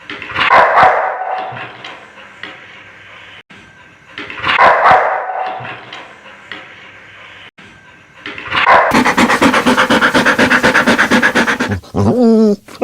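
Dog barking: two loud barks about four seconds apart, then about three seconds of a fast, evenly pulsing sound, and short high whines or yips near the end.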